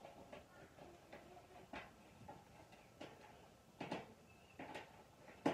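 Scattered light clicks and taps of metal parts and screws being handled while a steel smoker is put together by hand, with a sharper knock right at the end.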